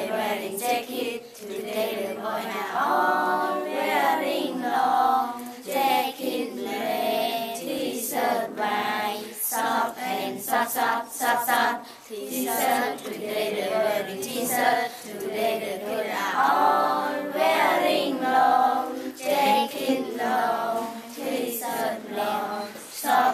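A group of children singing together in chorus, with sharp beats at intervals.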